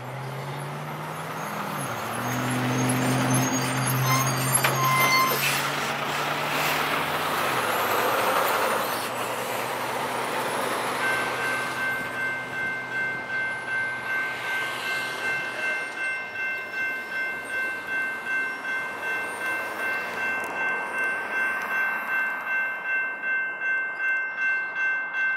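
A passing vehicle's engine drones for the first several seconds. About 11 seconds in, the railroad crossing bell starts ringing in a steady, even rhythm as the signals activate for an approaching train.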